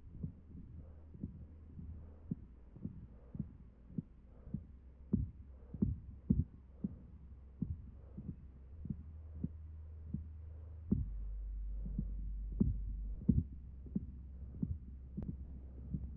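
Soft low thumps repeating about twice a second, like a pulse, over a steady low hum. About eleven seconds in, the hum drops deeper and grows louder.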